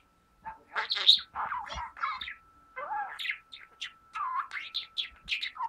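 Blue budgerigar warbling: a quick, uneven run of short chirps, squeaks and gliding notes with brief pauses.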